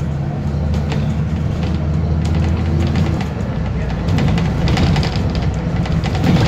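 Alexander Dennis Enviro 400 double-decker bus engine running under way, heard from inside the upper deck as a steady low drone. The engine note changes about three seconds in.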